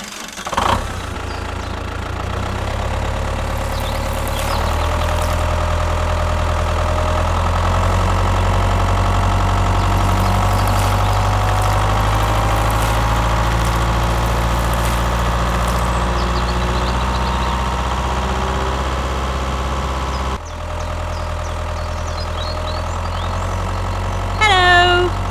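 Tractor engine running steadily at idle, a low even hum. It drops abruptly in level about twenty seconds in and carries on quieter.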